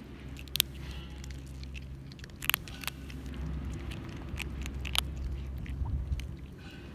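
Cats crunching dry kibble: irregular sharp crunches and clicks, a few louder ones about half a second, two and a half and five seconds in, over a low steady hum.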